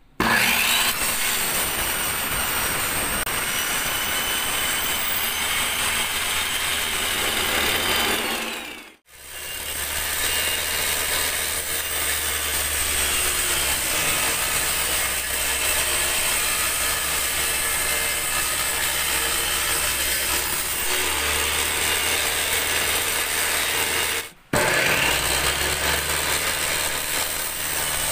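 Makita 5806 circular saw, mounted upside down as a table saw, running at speed while its blade cuts through laminated board. It starts with a rising whine, fades out about nine seconds in and runs on again. Near the end it breaks off briefly and whines back up.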